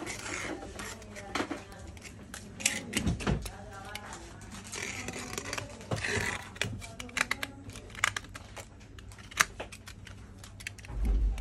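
Handling noise of a broken laptop LCD panel: scattered clicks, taps and short scrapes as it is turned over and a cutter blade is worked along its edge.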